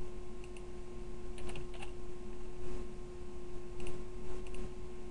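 Computer keyboard keystrokes: scattered clicks in small clusters with pauses between, as the dashes in a MAC address are retyped as colons. A steady low hum runs underneath.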